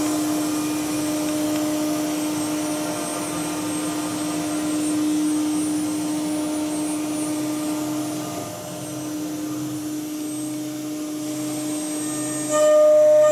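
Steady hum of running workshop machinery: one constant droning tone over a hiss. Near the end a louder tone starts pulsing on and off about once a second.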